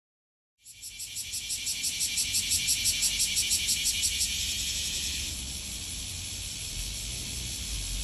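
A cicada singing: a loud, high buzzing song that starts abruptly about half a second in, swells in rapid even pulses, then settles into a steadier buzz about five seconds in.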